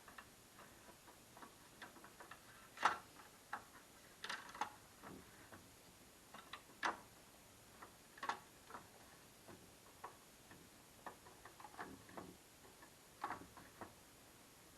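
Irregular light clicks and taps of small parts and tools being handled, with a few sharper knocks, loudest about three and seven seconds in.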